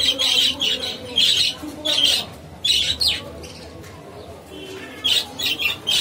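Budgerigars chattering in short, rapid chirps and squawks, with a quieter lull of a couple of seconds in the middle before the calls resume.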